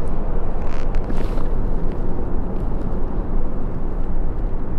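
Wind buffeting the body-worn camera's microphone, a steady low rumble, with a faint brief rustle of the landing net being handled about a second in.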